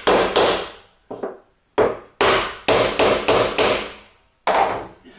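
A glued wooden panel being knocked down onto its wooden dowels to seat the joint: about ten sharp knocks, spaced unevenly, the last near the end.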